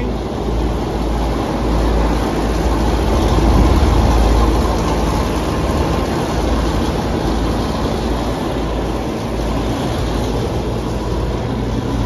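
York rooftop air-conditioning unit running in two-stage cooling, its compressors and condenser fan giving a steady, loud mechanical hum with a heavy low rumble.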